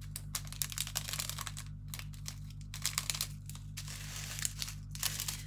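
Small plastic bags of diamond painting drills crinkling and rustling in quick, irregular crackles as they are handled and laid down, over a faint steady low hum.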